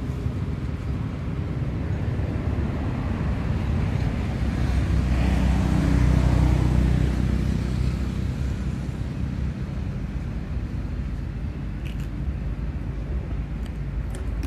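A motor vehicle engine rumbling past, building to a peak about six seconds in and then fading away. A few faint clicks sound near the end.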